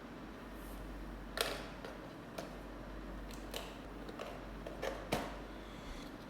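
Hands handling an action figure and its plastic packaging: a series of small, irregular clicks and taps over a steady low hiss, the sharpest about a second and a half in.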